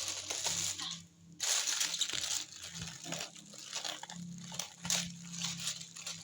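Parcel packaging being handled and opened by hand, with irregular bursts of crinkling and rustling.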